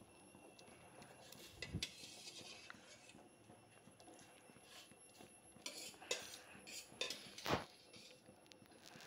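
Steel ladle clinking and knocking against a stainless steel bowl and pot as cooked rice ada is tipped into the milk, a few scattered knocks, the loudest about seven and a half seconds in.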